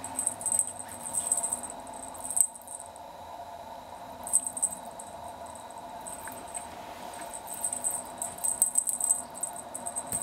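Kitten's claws and paws scratching and rustling on a shiny quilt as it scrambles about playing, in short crackly bursts with pauses between, over a faint steady hum.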